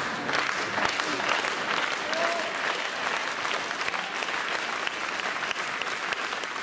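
Indoor arena crowd applauding, a dense patter of many hands clapping.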